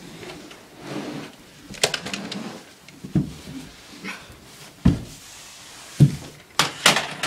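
Thumps and scuffing of a person crawling on his belly across carpet and onto a bare wooden floor, with a heavy thump of the body on the floor about five seconds in and a few sharp knocks near the end.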